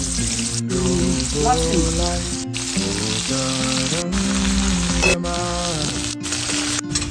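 Food sizzling as it fries in hot oil in a pan, in short bursts that cut off abruptly every second or so, over background music with a melody.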